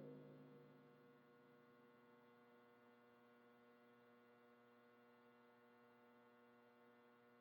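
Near silence: a faint steady electrical hum from the recording chain, between drum hits.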